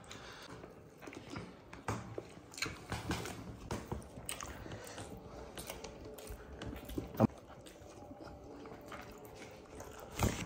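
People eating biryani by hand: chewing and lip-smacking with small clicks and rustles, and one sharper click a little past halfway.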